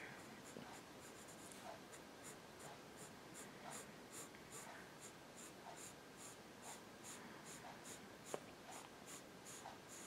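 Wooden graphite pencil scratching on drawing paper in short, faint strokes, about two to three a second, as grid lines are sketched; one light tap a little after eight seconds.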